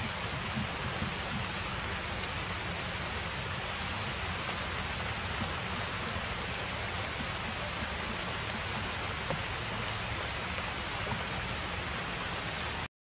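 Steady outdoor background hiss with no distinct events, of the kind made by rain or running water. It cuts out completely for a moment near the end.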